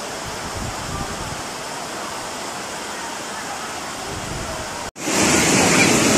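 Steady rushing noise of floodwater running through a street. About five seconds in, it breaks off sharply and is followed by the louder, denser rush of a muddy flood torrent.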